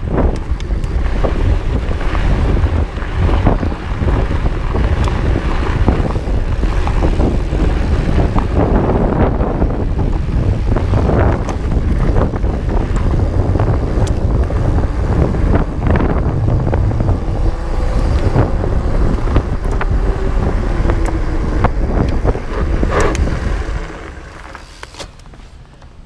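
Wind buffeting the camera microphone as a 2017 Trek Farley EX 8 fatbike runs fast down a dirt trail, with a dense rumble and many quick knocks and rattles from the fat tyres and frame over bumps. The noise falls away near the end as the bike slows.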